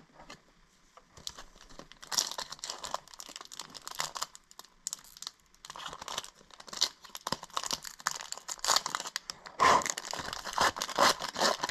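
Trading-card pack wrapper being torn open and crinkled by hand, in irregular crackly bursts that start about two seconds in and are loudest near the end.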